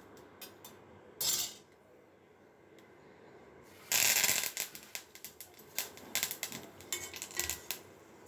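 Kitchenware handled and knocked: scattered clinks, a short noisy rush about a second in and a louder one about four seconds in. Near the end comes a run of quick knocks and scrapes as a wooden spatula stirs onions in a clay pot.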